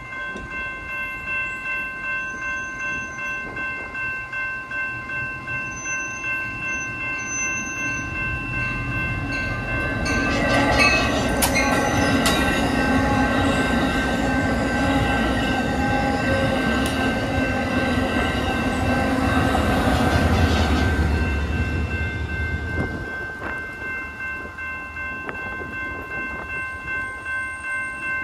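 Grade-crossing warning bell ringing steadily in a fast pulsing rhythm. A passenger train with bilevel coaches passes through the crossing from about ten seconds in to about twenty-three seconds, its low rumble and wheel clatter over the crossing louder than the bell. The bell keeps ringing after the train has gone.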